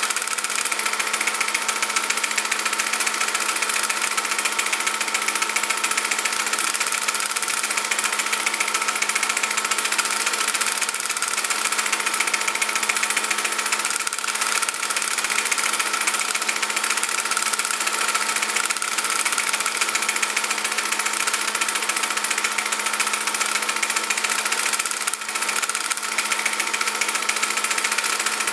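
A steady mechanical whir over even hiss, a small motor running without change in speed or load.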